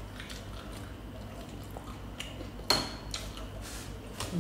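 Utensils clicking against dishes during a meal: a few light clicks and one sharper clink about two and a half seconds in.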